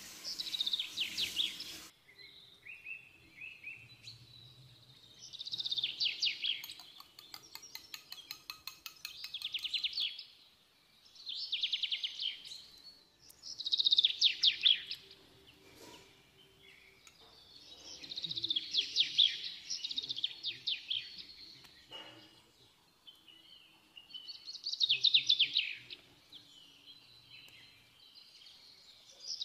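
A songbird singing: short phrases of fast, high trills that fall in pitch, repeated every few seconds, with a longer run of rapid clicking notes about seven seconds in.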